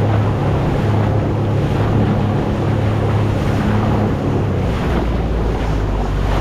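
Boat engine running with a steady low hum, under heavy wind noise on the microphone and the rush of choppy sea water around the boat.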